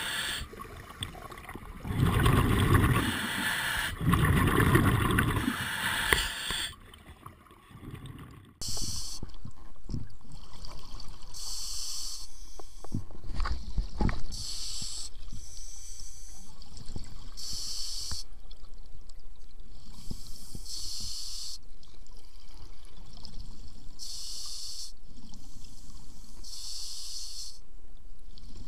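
Underwater sound of a scuba diver breathing through a regulator: loud gurgling surges of exhaled bubbles in the first several seconds. About nine seconds in, the sound changes abruptly to a steadier hiss with short, high hissing bursts every two to three seconds.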